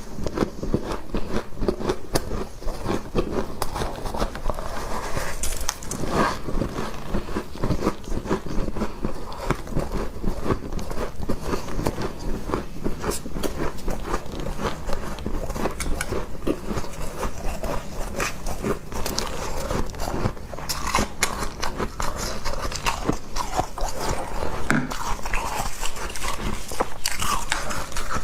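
Someone chewing and crunching a mouthful of humidifier frost: a dense, unbroken run of small crisp crunches and crackles.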